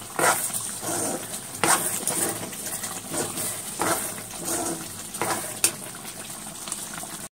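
A steel spoon stirring thick curry gravy in a kadai, wet and sloppy, with a handful of sharp scrapes and clinks against the pan.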